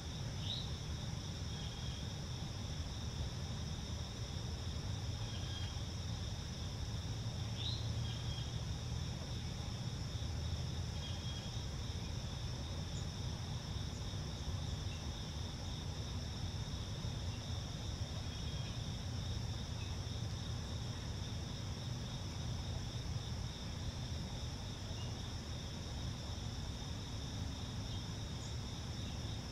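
Steady insect chorus, a continuous high trill in two pitches, over a low rumble. A couple of short high chirps come near the start and about eight seconds in.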